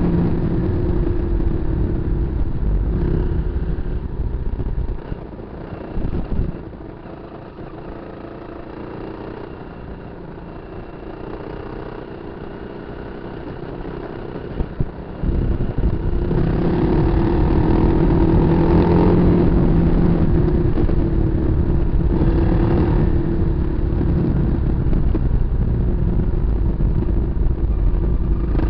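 Kawasaki KLR250 single-cylinder four-stroke motorcycle engine running under throttle off road. It drops much quieter for about ten seconds, with a couple of knocks, then pulls loudly and steadily again.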